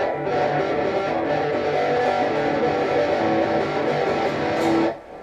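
Guitar-led intro music with strummed guitar, ending about five seconds in.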